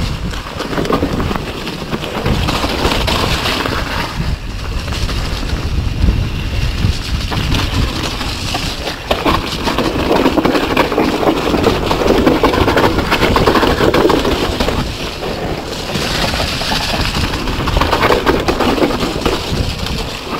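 Mountain bike riding fast down a muddy, rough forest trail: wind buffeting the action camera's microphone over the tyres on wet dirt and the rattle of the bike over bumps, rising and falling in loudness.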